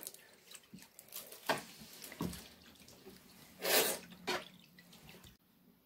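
A wire whisk stirring water in a plastic tub: faint swishing and splashing, with one louder swish a little before four seconds in.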